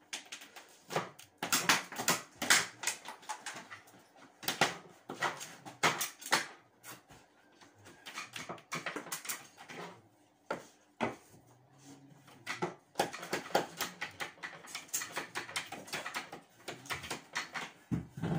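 Hand tool scraping and scratching at the top of a wall in quick, irregular strokes with light knocks, in a small, hard-walled room.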